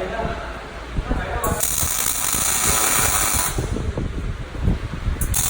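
Arc welding: a steady crackle, with a hissing arc that starts about one and a half seconds in, cuts off about two seconds later, and starts again near the end.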